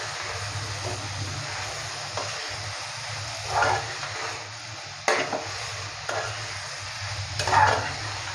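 Large creek prawns sizzling in a spiced masala in a steel kadhai while being stirred, with a few scrapes against the pan and a sharp knock about five seconds in.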